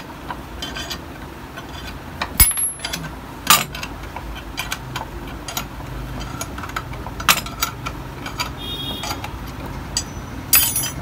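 Metal clicks, taps and knocks from a puller tool being worked on a Yamaha RX100 two-stroke crankcase half to press the crankshaft out, with a few louder knocks scattered through. The crankshaft comes free easily, without much hammering.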